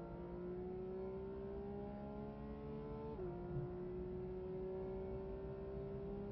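Porsche GT3 RS's naturally aspirated flat-six engine at full throttle, heard from inside the cockpit, its pitch climbing steadily. About three seconds in there is one quick upshift, a sudden drop in pitch, and then the engine climbs again.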